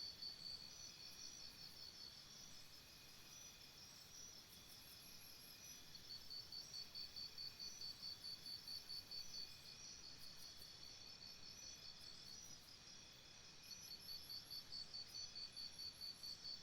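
Jungle ambience of insects chirping: a faint, high, pulsed trill of several pulses a second comes and goes in bouts of a few seconds, with a second chirping voice just above it and short groups of very high chirps.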